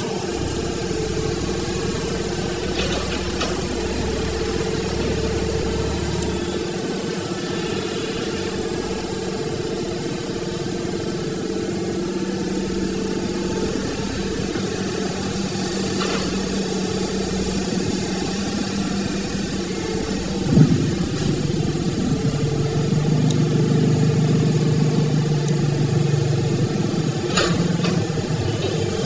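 An engine running steadily. A single knock comes about 20 seconds in, and after it the engine runs a little louder with a deeper note.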